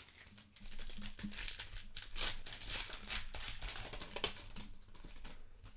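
Plastic trading-card pack wrapper crinkling as a pack is torn open and handled, in a string of irregular crackles.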